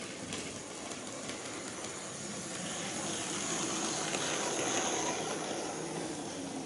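HO-scale KATO EF81 electric locomotive model running along the track and past close by: a steady rolling rumble of metal wheels on rail with a faint high motor whine, growing louder over the first four seconds or so. A few light clicks sound along the way.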